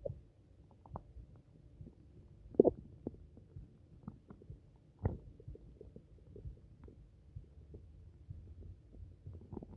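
Human stomach and intestines gurgling from an upset stomach: scattered short gurgles and pops over a low rumble, with the loudest gurgle about two and a half seconds in and a sharp pop about five seconds in.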